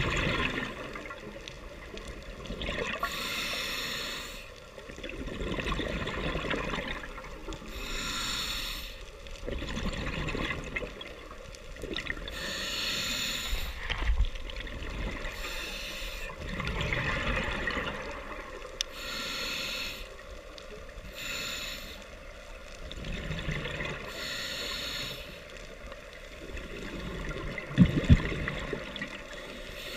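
Scuba diver breathing through a regulator underwater: a short hiss on each breath in and a rush of bubbles on each breath out, repeating every few seconds. A couple of sharp knocks near the end.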